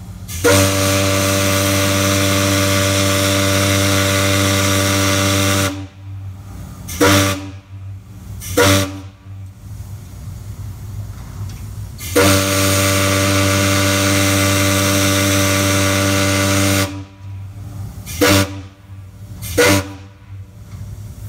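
The steam whistle of the 1902 Great Lakes excursion steamer Columbia blows one long, steady, deep blast of about five seconds, then two short blasts, and repeats the same long-short-short pattern. Steam hisses more quietly between the blasts.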